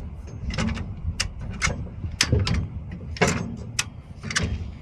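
High-lift jack being worked to raise a truck, with sharp metallic clicks at roughly two a second as it ratchets up. A steady low rumble runs underneath.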